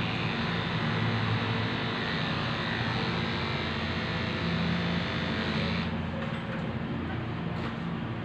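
Corded electric pet clippers buzzing steadily as they trim a dog's head fur. About six seconds in the higher cutting hiss drops away while the motor hum carries on.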